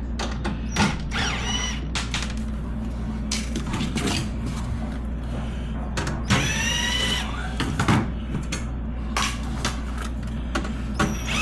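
Cordless driver with a 1/4" socket running in two short bursts, its motor whine rising and falling, as screws are backed out of a refrigerator's back panel, with clicks and knocks of handling between, over a steady low hum.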